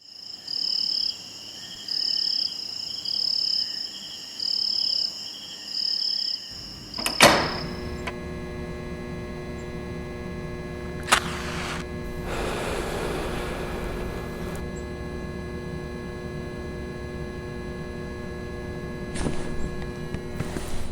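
Comic sound effects: a high electronic two-tone ring repeats about five times, then a single loud thunk. A steady electrical hum follows, with a sharp click, a few seconds of hiss, and a couple of clicks near the end.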